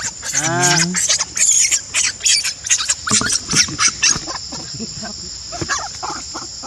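Macaques giving a quick run of short, harsh cries and squeals for about four seconds, over a steady high drone of insects.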